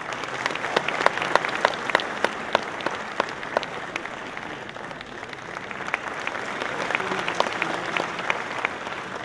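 Audience applauding, with sharp individual claps standing out from the steady clapping; it dips a little about halfway through, swells again, and tails off near the end.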